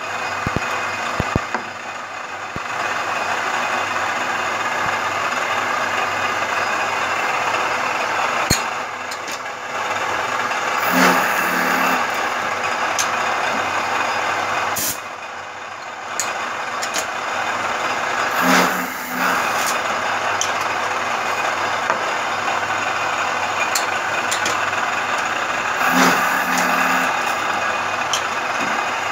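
Vertical milling machine facing the ends of aluminium pneumatic-cylinder tubes, a steady run of motor and cutting noise. A short hiss of compressed air breaks through three times, about seven seconds apart.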